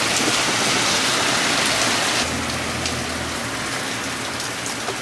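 Hail pelting down heavily: a dense, steady hiss of falling stones with scattered sharp clicks of individual hailstones striking, easing a little a couple of seconds in.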